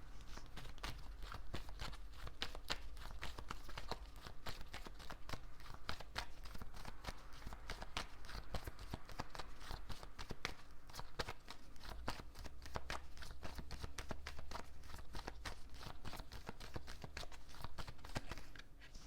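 A deck of tarot cards being shuffled by hand: a long, even run of quick card clicks and slaps.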